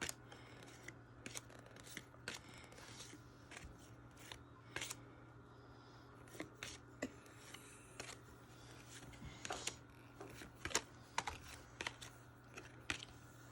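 Football trading cards being flipped through by hand: irregular light clicks and snaps as the cards slide and tap against each other, over a faint low hum.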